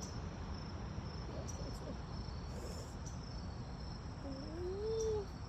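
Crickets chirping steadily in a high, pulsing chorus. Near the end, a short hum rises and falls in pitch.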